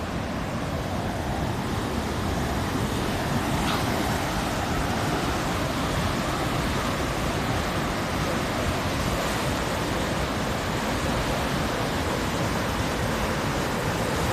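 Fast-flowing river running high, its water rushing steadily as one continuous wash of noise; high enough that it is reckoned a class 5 river.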